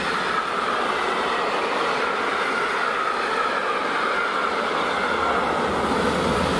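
Container wagons of a long intermodal freight train rolling past close by, a steady, even noise of steel wheels on the rails.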